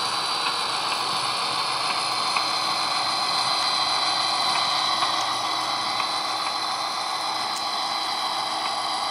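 HO scale model diesel locomotives' sound-decoder engine sound, a steady diesel drone from small onboard speakers as a locomotive creeps along the track, with a few faint clicks.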